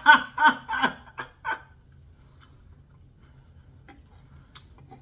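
A woman's short run of wordless vocal sounds: about six quick pitched bursts in the first second and a half. Then it falls quiet apart from a few faint clicks.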